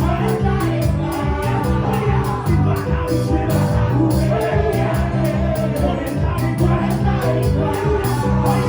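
Live gospel praise music: a band with bass and a steady, fast drum beat under a singing voice.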